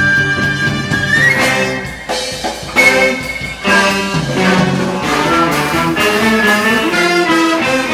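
Live large ensemble with a horn section of saxophones, clarinets, trumpet and trombone playing together. A held high note climbs in steps, the music drops back about two seconds in, a sharp accent hits near three seconds, and then the horns play moving lines together.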